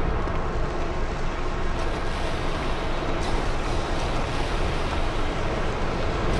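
Atmospheric black metal: a dense, steady wall of distorted guitars and drums.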